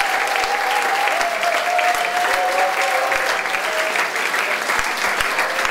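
Audience applauding steadily after a live song performance.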